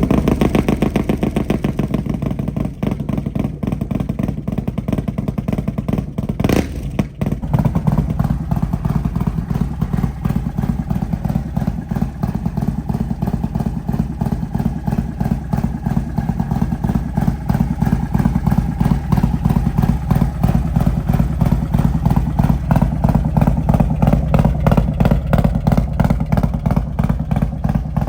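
Harley-Davidson Milwaukee-8 V-twin with a Thunderheader exhaust and a cam tune, idling just after a start with steady, even firing pulses. There is one sharp crack about six and a half seconds in, and a short dip before the idle picks back up.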